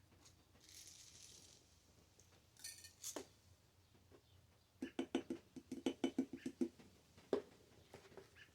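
Cucumber slices being packed by hand into a glass jar: a quick run of knocks and clinks against the glass from about five to nearly seven seconds in, with a short rattle and a single knock on either side.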